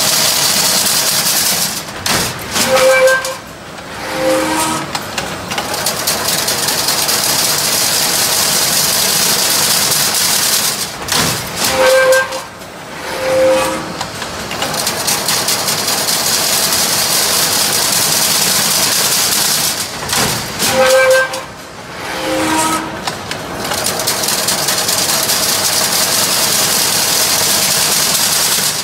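Automatic chain link fence weaving machine running: a steady loud hiss and whir from the weaving. Three times, about every nine seconds, it dips for a moment and gives a few short pitched toots before the steady running resumes.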